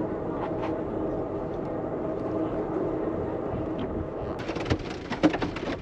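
Steady rumble and hum of a moving passenger train heard from inside the car. A little over four seconds in, sharp irregular ticks of hail hitting the train car begin and become the loudest sound.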